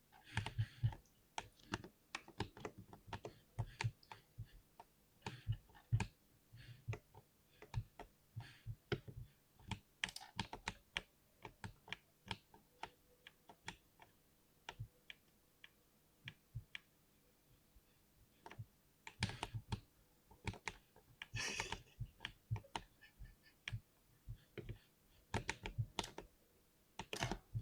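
Typing on a mechanical keyboard: irregular keystroke clicks, with quicker runs of keys in the second half.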